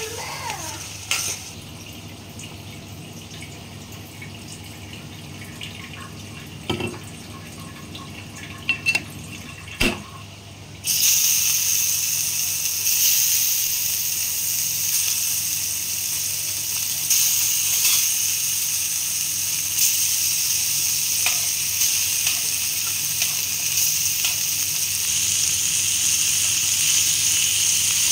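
Paneer blocks frying in hot oil in a pan: after a few knocks of utensils against the pan, a loud steady sizzle starts suddenly about eleven seconds in, with occasional taps of a metal spatula.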